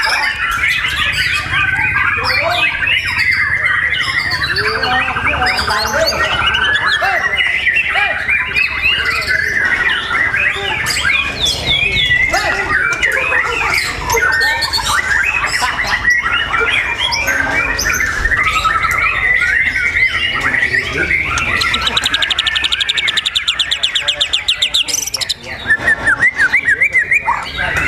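Songbird singing without a break: a busy stream of varied chirps, whistles and squawky notes, with a fast, even trill about three-quarters of the way through.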